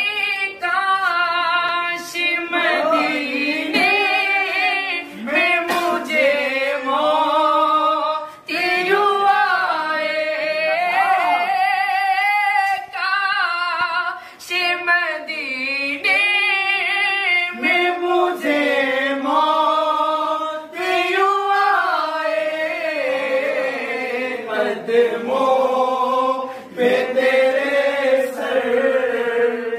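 A voice singing an Urdu devotional naat in long, drawn-out melodic phrases, with no instruments.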